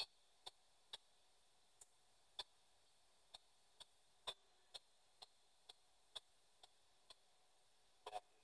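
P-SB7 spirit box sweeping through radio stations and playing through a small external speaker: faint, short clicks of static about twice a second, uneven in loudness, with a slightly louder double click near the end.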